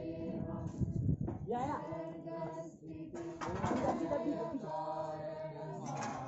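Several voices singing a devotional chant together, with notes held and some talk mixed in.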